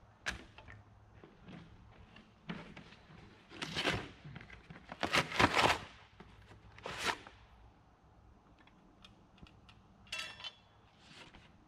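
Paper parts packaging rustling as it is handled, in a few short noisy bursts, loudest about five seconds in. A short ringing metal clatter about ten seconds in.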